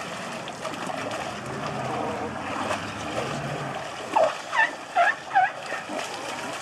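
River water sloshing and splashing as a baby Asian elephant plays in the shallows. Four short calls that rise in pitch stand out between about four and five and a half seconds in.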